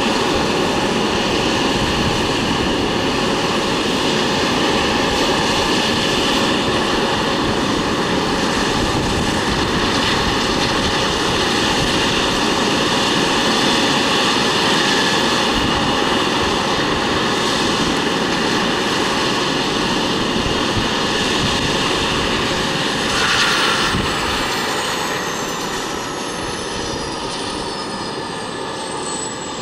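Eurocopter EC135 T2+ helicopter running on the ground with its rotor turning: a steady turbine whine over rotor and engine noise. About 24 seconds in there is a brief louder rush. Then the high whine tones glide steadily down in pitch and the sound grows quieter, as the turbines wind down.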